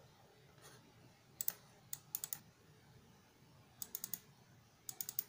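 Light clicking at a computer while navigating folders: short clusters of two to four quick clicks, about a second apart.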